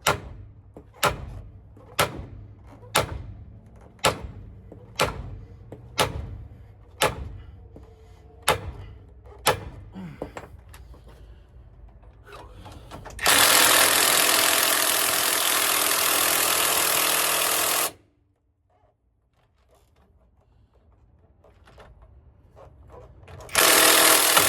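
Hammer striking metal on a driveshaft yoke held in a press, about ten blows roughly a second apart, to drive out a stuck U-joint. After a pause comes a loud steady rushing hiss lasting about five seconds; it cuts off suddenly and starts again near the end.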